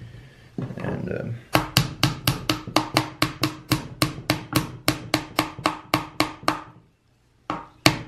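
Small steel hammer tapping a metal pin down into a chainsaw's plastic handle housing: quick, light, even taps about four a second, each with a short metallic ring. They stop briefly about seven seconds in, then a few more taps follow.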